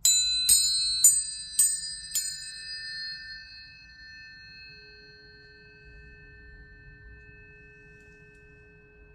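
Tuning forks struck five times in quick succession, about half a second apart, leaving several high pure tones ringing and slowly fading. A lower steady tone joins about halfway through.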